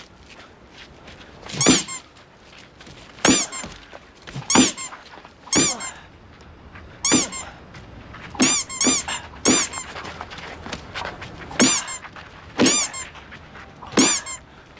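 Squeaky-toy sound effects: about eleven short, high squeaks, each bending in pitch, landing at irregular intervals roughly a second apart, with a quick pair in the middle. Each squeak has a dull thump at its start.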